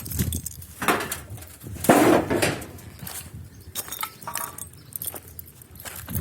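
A series of knocks and clinks, with a louder clattering scrape about two seconds in, like hard objects being handled and knocked together.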